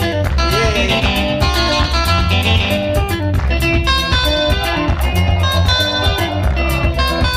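Upbeat dance music: guitar lines over a heavy bass and a steady beat.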